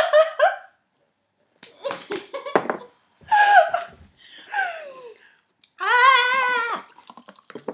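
Young women laughing and crying out in short bursts as a hot chilli burns, with a falling whimper about halfway and a long, high, wavering squeal near the end.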